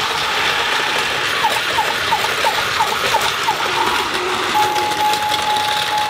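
Plarail DX Crossing Station toy playing electronic sound effects: a run of short chirps about three a second, like a level-crossing bell, then about four and a half seconds in a single steady beep. Under them runs the steady noise of a battery-powered Plarail toy train running on its plastic track.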